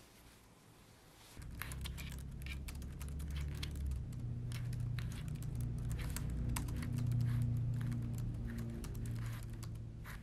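Rapid typing on a laptop keyboard, a dense run of light key clicks starting about a second and a half in, over a low droning tone that shifts in pitch now and then.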